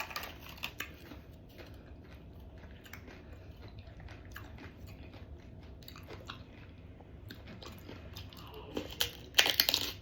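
A person chewing and crunching food close to the microphone, with many short crisp crunches and a louder run of crunching near the end.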